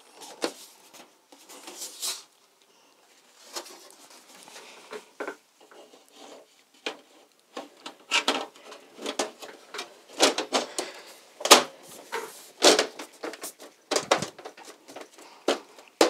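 Side panel of an Alienware Aurora R7 desktop case being fitted back on: a run of clicks, knocks and scrapes as it is slid into place and pressed down, sparse at first and coming thick and fast over the second half.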